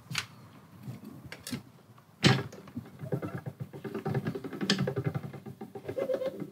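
Light metallic clinks and one sharp knock as a thin sheet-metal exhaust segment is handled and set into a slip roll, with background music with a beat underneath.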